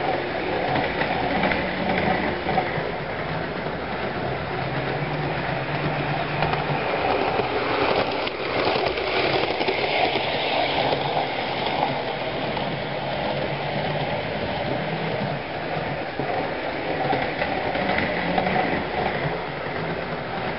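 Hornby OO-scale Class 466 Networker model electric train running on track: a steady whirr of its motor with its wheels running on the rails, growing louder about halfway through as it passes close by.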